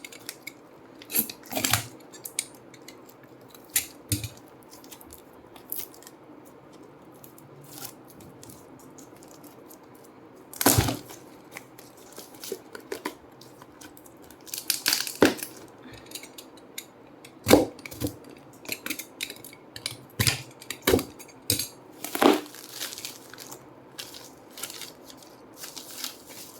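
Tightly packed parcel packaging being torn open and crumpled by hand: scattered rustles and crackles, with a few louder rips in the second half.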